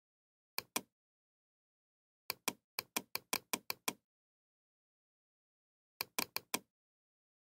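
Computer mouse clicks, each a quick two-part press-and-release click, as the scrollbar's down arrow is clicked to scroll a page. There is one click near the start, a fast run of about half a dozen in the middle, and a few more near the end.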